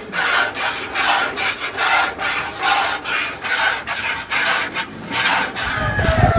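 A cow being milked by hand into a pail: jets of milk squirting in a steady rhythm, about two to three squirts a second. A low rumble comes in near the end.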